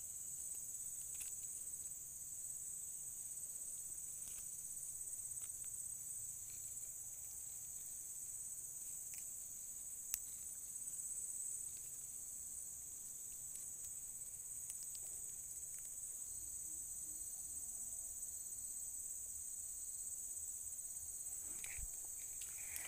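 Steady high-pitched chorus of insects singing without a break, with one sharp click about ten seconds in.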